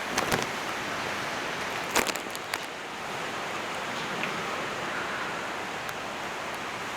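Hurricane storm noise: a steady rushing hiss of wind and water, broken by a few sharp knocks just after the start and again around two seconds in.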